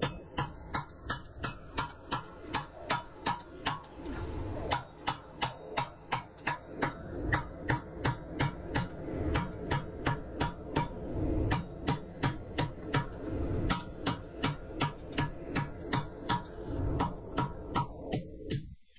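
Rapid, evenly spaced hammer blows on a glowing cable Damascus billet in a V swage block, about three strikes a second, forge-welding the cable wraps and closing the grooves between them. The blows stop shortly before the end.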